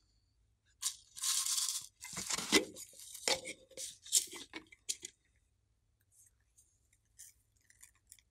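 Plastic strawberry-shaped container being handled and its stem-shaped lid twisted and pulled off: a run of scraping, crackling plastic noises for about four seconds, then a few faint ticks.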